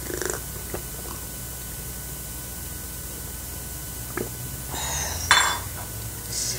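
Water gulped from a glass mug, then the glass set down on the table with a clink about five seconds in.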